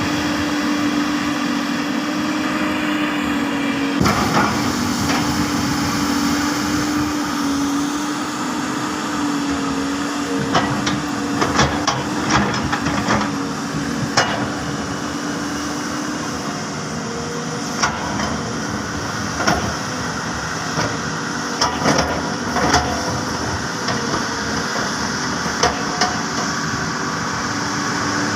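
Large Hyundai 330LC-9S excavator's diesel engine running steadily, with repeated sharp metal knocks and clanks, mostly in the second half.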